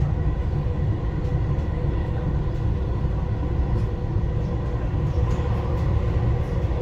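Dubai Metro train running, heard from inside the carriage: a steady low rumble from the wheels and running gear, with a faint steady hum on top.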